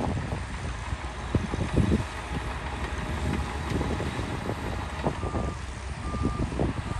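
Heavy earth-moving machinery running with a low rumble, and a reversing alarm starting about five seconds in, beeping roughly once a second.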